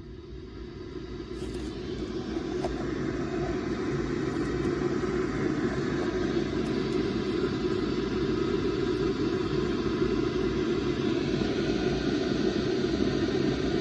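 Sangean CL-100 weather radio's speaker hissing with static on a channel with no station tuned in, the sign of poor reception. The hiss swells over the first few seconds, then holds steady.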